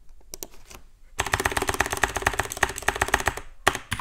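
Typing on a computer keyboard. A few single keystrokes come first, then a fast run of keystrokes from about a second in, with a short pause near the end before the typing resumes.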